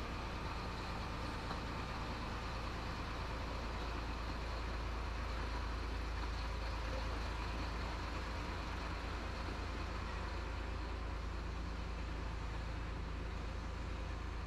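Chenglong 375 heavy truck's diesel engine running at a low, steady speed as the truck rolls slowly, heard from inside the cab as an even low hum.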